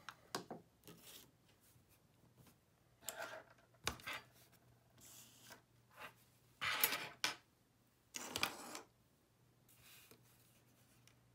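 Hands handling an iPod Touch and sliding over a rubber work mat: a few short rubbing and scraping sounds, the two loudest in the second half, with a sharp click about four seconds in. A low steady hum runs underneath.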